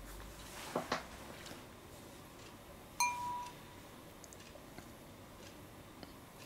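Two light knocks, then a paintbrush clinking once against a hard glass or ceramic painting container, with a short clear ring that fades within half a second.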